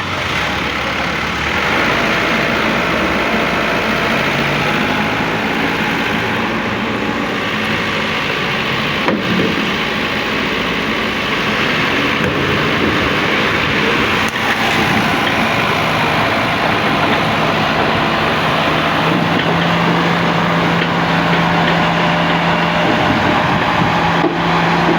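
Road traffic with a heavy vehicle's engine running steadily. A low, steady engine hum holds through the last several seconds.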